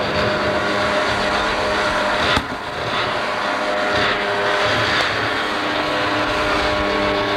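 Speedboat engine running at high speed across the water, with a sharp bang about two and a half seconds in and a smaller one a few seconds later.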